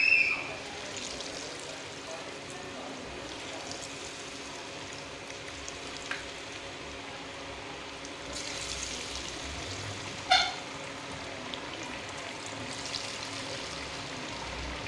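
Besan-battered potato slices deep-frying in a steel pot of hot oil: a steady sizzle and bubbling, which grows a little livelier about eight seconds in. A short sharp knock sounds about ten seconds in.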